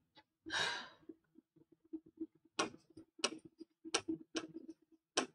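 A pen tapping and clicking against a writing board as words are written: a soft rustle about half a second in, then a run of short, sharp, irregularly spaced clicks.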